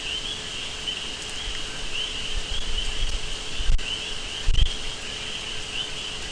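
Steady, high, pulsing chirring of insects in the background, with two dull low thumps near the middle.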